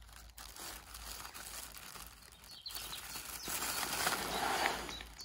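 Thin black plastic bag crinkling and rustling as it is handled, getting louder in the last couple of seconds.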